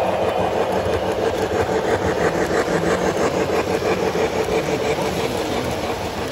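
Model trains running on a large layout: a steady electric-motor hum with wheels clicking rapidly over the track, the clicking clearest a couple of seconds in.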